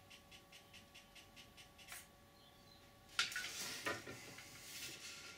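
Handheld 3D pen extruding ABS filament: its small feed motor runs with a faint steady hum and a regular ticking, about four or five ticks a second, which stops with a click about two seconds in. From about three seconds in, louder rubbing and knocks as the pen and hands handle the plastic panel.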